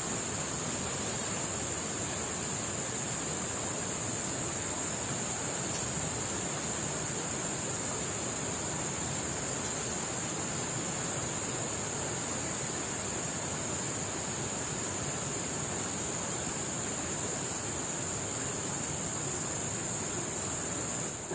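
Steady, even hiss with a continuous high-pitched insect drone over it, unchanging throughout; the hiss drops away abruptly at the end.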